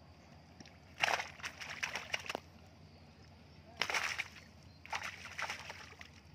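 Water splashing in three short bursts as fish thrash in a net being emptied by hand, with quick slaps within each burst.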